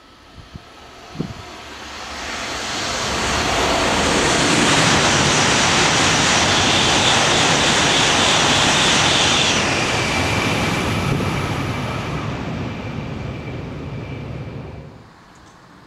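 E5 series Shinkansen passing through the station at high speed: a rushing roar that builds over a couple of seconds, stays loud for about five seconds, then fades and drops away abruptly about fifteen seconds in. A few small knocks come just before it, near the start.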